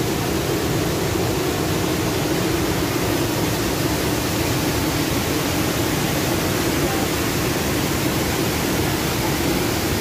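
Wide, low river waterfall, whitewater spilling over a broad rock ledge, making a steady, unbroken rush of falling water.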